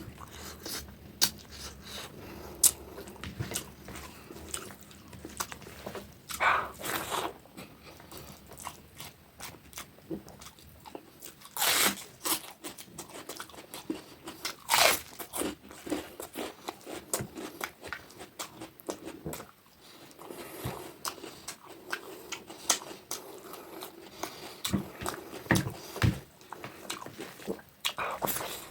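A person eating close to the microphone: wet chewing and crunching with irregular mouth clicks, a few louder crunchy bites spread through, such as raw cabbage or onion slices taken with the fish curry.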